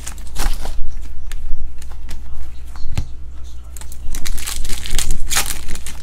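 Foil trading card pack wrapper crinkling and crackling as it is handled and torn open, with a sharp click about halfway and the loudest bursts of crinkling shortly after, over a steady low hum.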